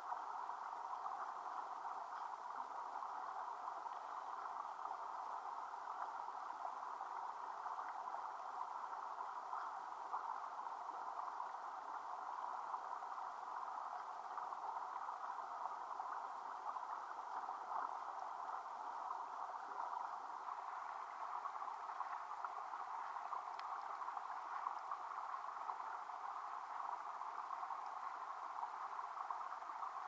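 Steady rush of water spilling over a concrete check dam into the pool below, an even wash of water noise without any change.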